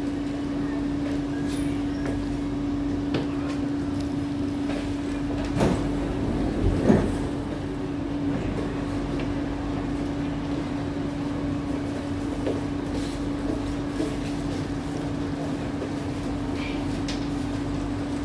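C151A metro train's passenger doors and the platform screen doors sliding open, with the two loudest sounds of the door movement about six and seven seconds in. Under it the stopped train gives a steady, even hum.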